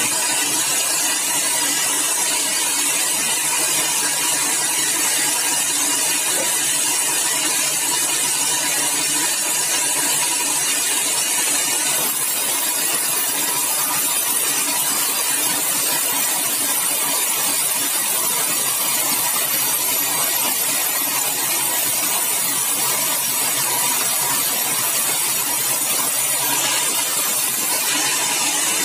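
Sawmill saw running and cutting through a yellow balau (bengkirai) hardwood log, a steady, unbroken high hissing noise.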